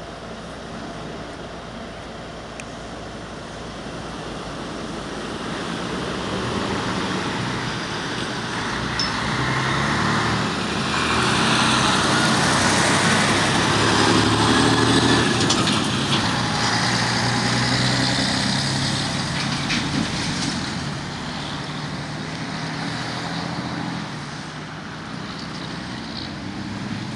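Road traffic: a vehicle towing a flatbed trailer drives past close by, its engine and tyres growing louder to a peak about halfway through, then fading, with other cars passing.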